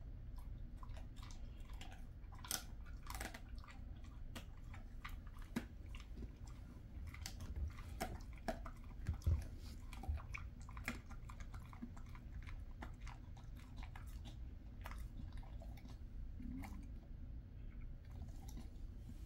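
A Jindo dog chewing kangaroo jerky, with irregular crunching clicks of its teeth on the treat.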